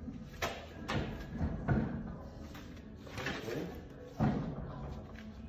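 Heavy thuds and knocks from a John Deere 3010's rear wheel and tire being shoved and worked on its axle, about five separate knocks, the loudest about four seconds in.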